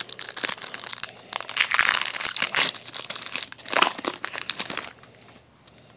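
Crinkling of a Pokémon booster pack's foil wrapper as it is opened and the cards are pulled out. The crackle is dense and full of clicks, and it stops about five seconds in.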